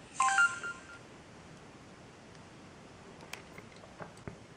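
Samsung SGH-i560 phone speaker playing a short message tone: a quick run of electronic beeps at different pitches, over in under a second. A few faint clicks follow later.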